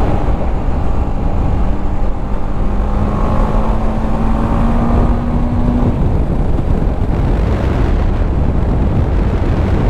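BMW G310 GS's single-cylinder engine running as the motorcycle rides along at road speed, with wind rushing over the microphone. A faint engine note rises slowly through the first six seconds, then fades into the steady rush.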